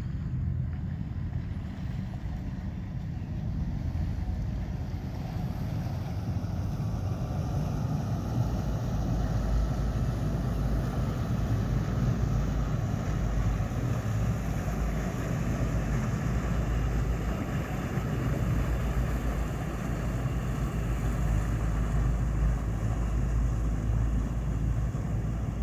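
Boat engine running steadily underway, heard from aboard as a low rumble that grows a little louder about eight seconds in.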